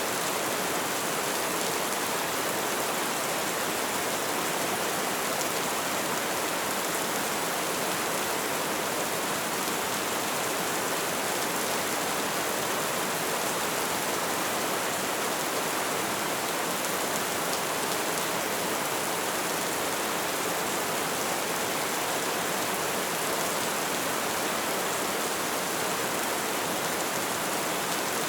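Light rain falling, a steady even hiss of drops with no single drop standing out.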